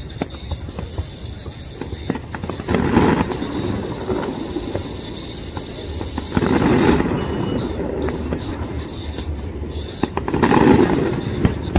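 Aerial fireworks display: many sharp crackling pops over a low rumble of bursting shells, with three louder swells about three, seven and eleven seconds in.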